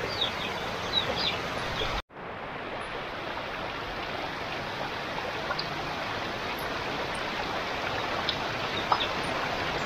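Heavy rain falling steadily, a dense even hiss. It cuts out for an instant about two seconds in, then comes back.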